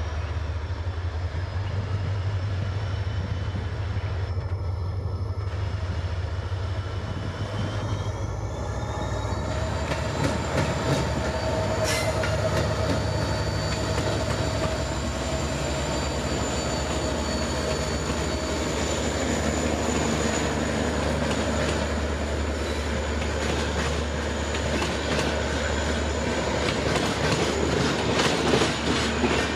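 WDP4D diesel-electric locomotive's 16-cylinder two-stroke EMD engine running as it hauls an express train past, with a high-pitched whine on top. From about ten seconds in, the wheels click steadily over rail joints and points as the locomotive and coaches roll by.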